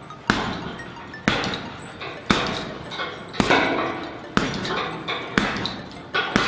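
Boxing-gloved jabs striking a heavy punching bag, seven even blows about a second apart, each a sharp thud that dies away quickly.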